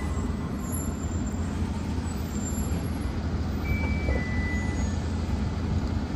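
A vehicle running with a steady low rumble, and a few brief faint high-pitched squeaks about four seconds in.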